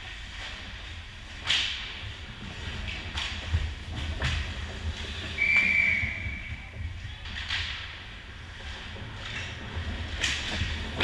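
Ice hockey skates scraping and spraying the ice in several short sharp strokes, and a little past the middle a referee's whistle gives one short steady blast, stopping play at the goal.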